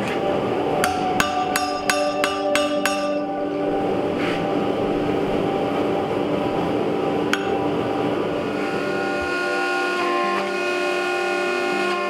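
Hand hammer striking steel on an anvil, shaping the bottle opener's eye on the horn: seven quick ringing blows about a second in, then a single blow about halfway through. Background music with held notes runs underneath.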